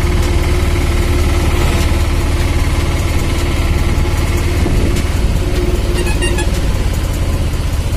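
Steady low engine drone and road noise heard from inside a moving vehicle, with a brief high chirping about six seconds in.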